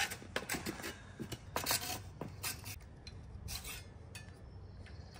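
Hand hacksaw rasping through a thin rod in irregular scraping strokes, which thin out after about three seconds.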